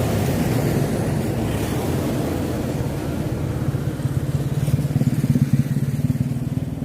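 Small motorcycle engine running steadily, getting louder and throbbing more strongly about halfway through.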